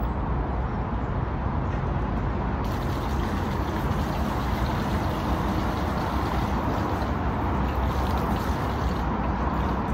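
Water running steadily from an outdoor public pump tap, splashing into a small plastic bottle being filled and onto the paving below.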